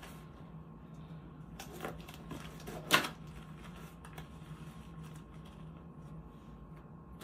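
Disposable exam gloves being pulled off: a few soft rustles and light clicks, then one sharp snap about three seconds in. A steady low hum runs underneath.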